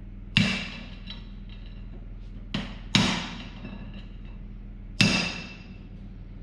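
Hammer blows on the steel of a John Deere 6400 tractor's front steering knuckle, beating at a part that is hung up and won't come free. There are three hard strikes, about half a second, three seconds and five seconds in, plus a lighter tap just before the second, each ringing on briefly with a metallic tone.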